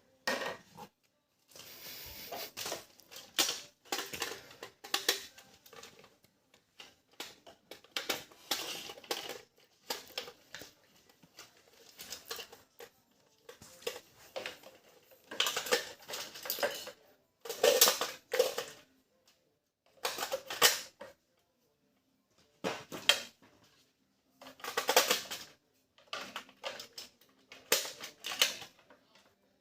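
Hard plastic toy parts clattering and rustling as they are handled, in irregular bursts with short pauses and a few sharp knocks.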